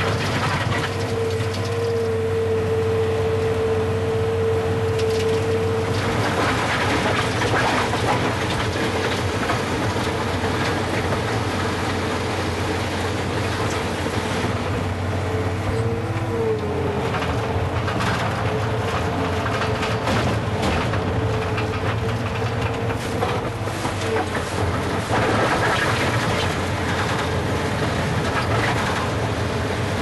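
Skid steer loader running with a hydraulically driven Sweepster hopper broom sweeping gravel off asphalt: a steady engine drone and a steady whine that wavers about halfway through, over a constant gritty rush of bristles and grit with scattered clicks.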